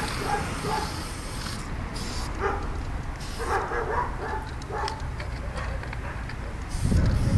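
An animal's short calls, repeated in clusters, over a steady low rumble; a louder low rumble starts near the end.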